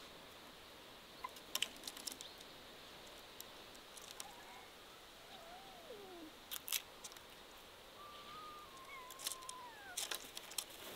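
Quiet garden ambience: scattered faint clicks and taps, with a few soft gliding bird calls, one falling in pitch about halfway through and more later on.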